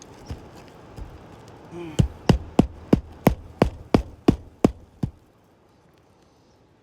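A hammer striking in a quick, even run of about ten sharp blows, roughly three a second, stopping about five seconds in.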